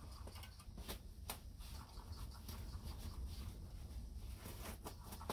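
Small ice-fishing reel being cranked to bring in a fish, with faint scratchy ticking and a few sharper clicks over a low steady rumble.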